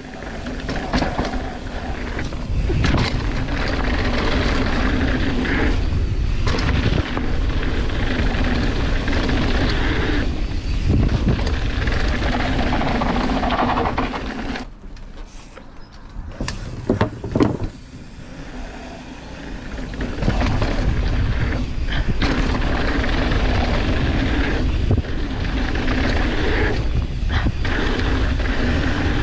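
Mountain bike riding fast down a dirt trail: a steady rush of wind over the handlebar camera's microphone and tyres rolling over dirt, with the bike rattling. About halfway through the rush drops away for a few seconds, with a couple of sharp knocks, then comes back.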